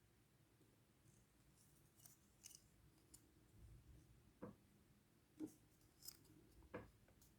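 Near silence with a few faint, short clicks and scrapes of small tools handling a laptop's cooling fan.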